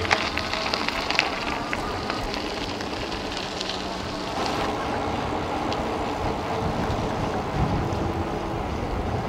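E-bike tyres rolling over a gravel road with wind buffeting the microphone; gravel ticks and crackles under the tyres, thinning out after about four seconds as the ride continues in a steady rush.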